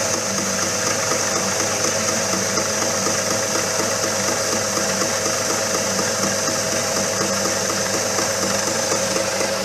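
Motor-driven peanut topping machine running steadily: a steady whine over a fast, even mechanical pulsing.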